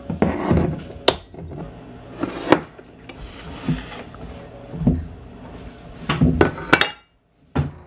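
Kitchen items being handled and set down on a wooden countertop: a string of separate knocks and clatters, about a dozen over several seconds, with a short gap near the end.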